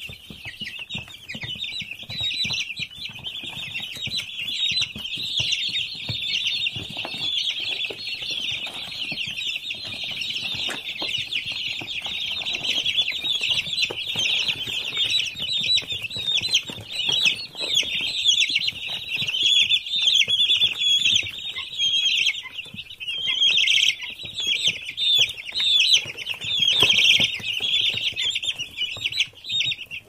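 A crowd of young domestic chicks peeping continuously, many high, short calls overlapping into a dense chorus, with single louder peeps standing out more often in the second half.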